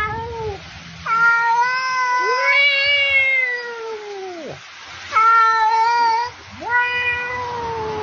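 A black cat and a man imitating it trading long, drawn-out meows: a short call at the start, then four long calls, each held steady and then sliding down in pitch at the end.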